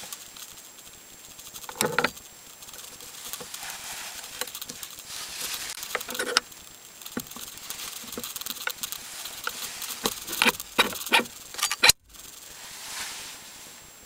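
Metal clicks and knocks from a steering-wheel quick-release hub as the wheel is slid onto it and latched, with a quick run of sharp clicks near the end.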